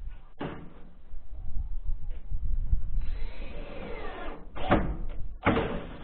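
Profiled sheet-steel flashing being handled and fitted at a window frame. A sharp knock comes about half a second in, then a wavering rattle for about a second and a half, then two more sharp knocks near the end.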